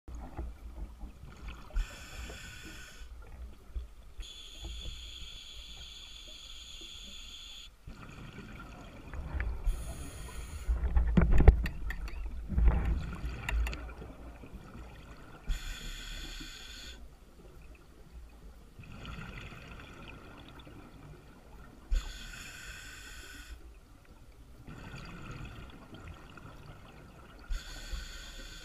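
A scuba diver breathing underwater through a regulator. Hissing breaths come every few seconds, with a louder low rumble of exhaled bubbles about a third of the way in.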